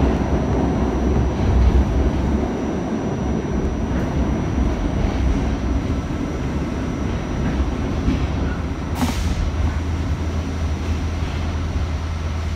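Running noise heard from inside an R68A New York City subway car: a steady rumble of wheels on rail and car body through the tunnel as the train pulls into a station, with a short hiss about nine seconds in.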